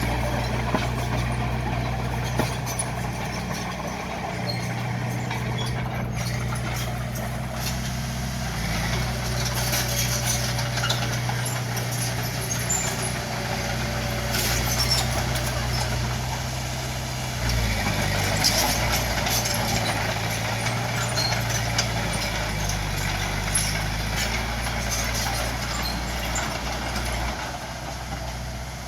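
Bulldozer's diesel engine running steadily under work, with scattered metallic clanks and squeaks; the engine note shifts about two-thirds of the way through.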